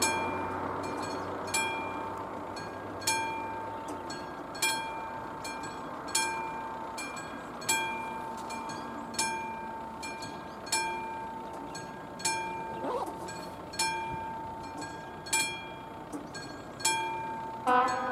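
Classic mechanical warning bell of an AŽD 71 level crossing striking about once every second and a half, each stroke ringing out: the signal that the crossing is active for an approaching train. Near the end a louder sustained tone with several pitches joins in.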